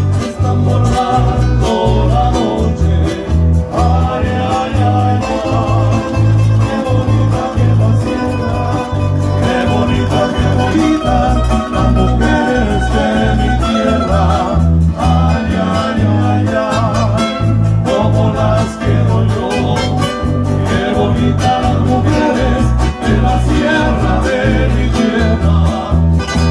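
Live Nicaraguan folk music: acoustic guitars strummed over a pulsing bass line, with a wavering melody above.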